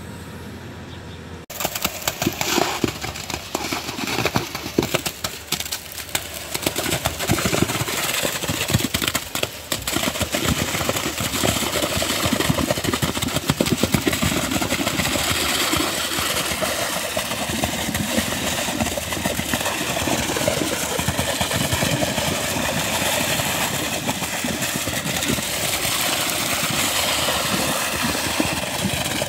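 Truck-mounted concrete boom pump running while wet concrete pours out of its end hose into a foundation trench: a steady engine noise thick with crackle, starting suddenly about a second and a half in.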